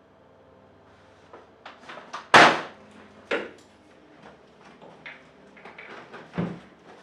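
A string of knocks and clunks, the loudest a sharp bang about two and a half seconds in, with further strong knocks a second later and near the end.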